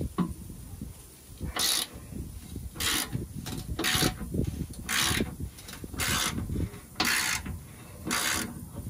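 Ratchet wrench clicking in short bursts about once a second as it is swung back and forth, loosening the 17 mm bolts that hold a truck's front recovery hooks.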